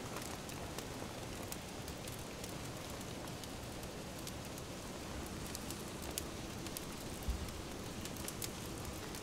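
Cream simmering in a cast-iron Dutch oven over embers: a steady bubbling hiss with scattered small crackles. A single low thump comes about seven seconds in as grated cheese is stirred in with a wooden spatula.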